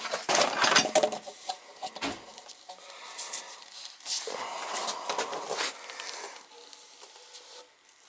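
Handling noise from Centrotherm plastic vent pipe and fittings: a series of light knocks and clatters against a cardboard box, with a longer stretch of rubbing and rustling about halfway through.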